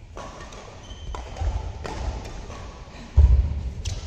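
Badminton rally: rackets striking the shuttlecock in sharp taps roughly every second, with low thuds of players' feet on the court, the loudest about three seconds in.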